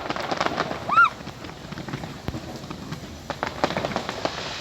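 Fireworks popping and crackling in a scattered string of sharp reports over the hiss of rain, with one brief rising-and-falling high tone about a second in, the loudest moment.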